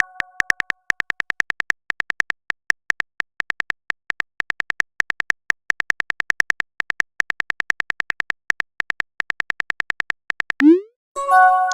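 Phone keyboard typing sound effect: a long run of quick clicks, about five a second, as a text message is typed out. Near the end a rising swoop and a bright chime sound as the message is sent.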